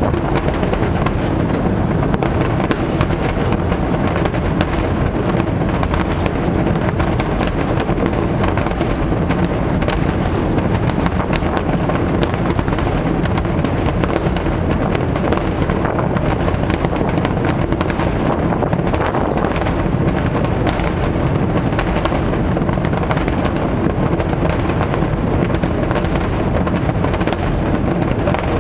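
Aerial firework shells bursting in a dense, unbroken barrage: a continuous low rumble with many sharp cracks and bangs throughout.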